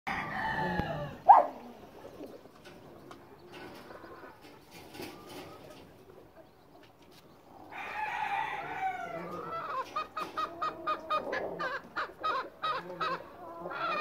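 White hen calling: a drawn-out call at the start and another about eight seconds in, then a fast run of short clucks, about four or five a second, from about ten seconds in. A brief, very loud sharp sound about a second in.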